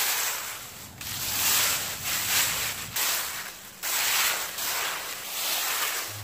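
A fan rake sweeping dry fallen leaves across grass, a scratchy rustle in repeated strokes about every one to two seconds.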